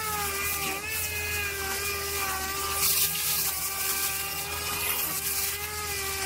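Small handheld sander with a soft pad spinning against a repaired Jeep Wrangler fender: a steady whine with a hiss above it, the pitch dipping slightly now and then as the pad bears on the surface.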